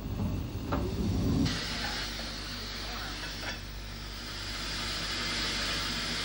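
Steam locomotive letting off steam: a low rumble for the first second and a half, then a steady hiss.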